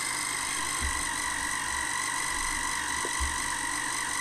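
Small electric motor of a countertop mayonnaise-making gadget running steadily, a constant buzzing hum as it mixes eggs. Two faint low knocks come about a second in and again a little past three seconds.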